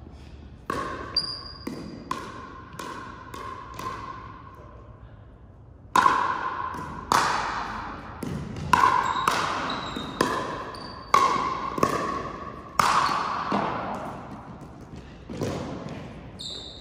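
A fast run of ball strikes and bounces in a gymnasium, each one ringing and echoing off the hall, with brief high squeaks of shoes on the gym floor among them. The hits come in quick clusters, with a pause of about two seconds near the middle.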